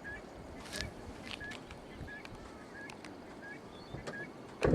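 Steady rushing of the flooded Burdekin River, with a short high chirp repeating about every two-thirds of a second. A sharp knock near the end.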